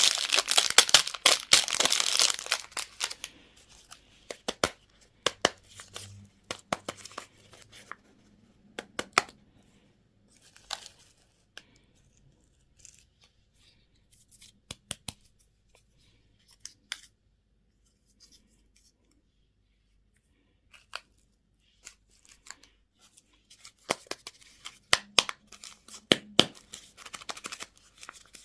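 Plastic packaging crinkling and tearing for the first few seconds, then sparse small clicks and taps as it is handled, going nearly quiet for a few seconds past the middle before a cluster of taps near the end.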